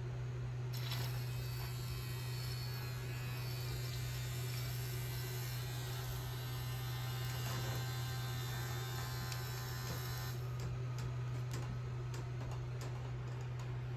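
Small electric herb grinder's motor and stainless steel blade spinning in a test run with a steady high whine. The whine starts about a second in, runs for roughly nine seconds and stops suddenly, followed by a few light clicks.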